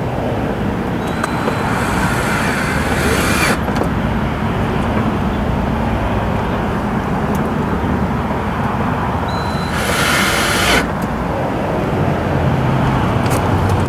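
Power drill driving two small screws into a voltmeter's plastic mounting bezel: one run of about two seconds, then a second, shorter run about eight seconds later, each starting with a brief whine. A steady rumble runs underneath.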